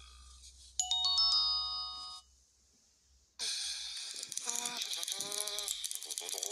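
Cartoon sound effects: a short chime of several ringing tones stacked one after another. After a brief gap, a hissing, rattling noise starts with a wavering pitched sound over it.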